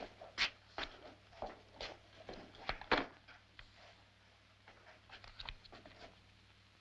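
A string of light knocks, clicks and rustles from people handling things and moving in a wooden room, about a dozen in the first three seconds and a quieter cluster near the end.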